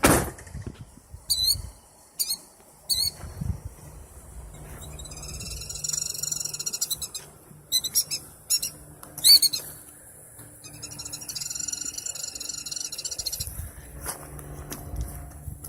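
Killdeer giving repeated sharp, high alarm calls and two long trilling runs: a mother bird's distress calls while she draws an intruder away from her nest. A single thump comes at the very start.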